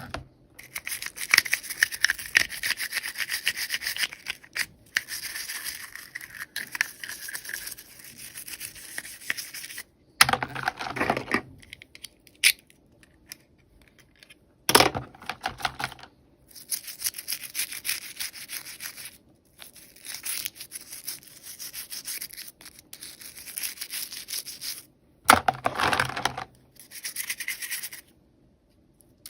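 Toy packaging being handled and opened by hand: a run of scratchy rubbing and crinkling with short pauses, and a few louder handling noises.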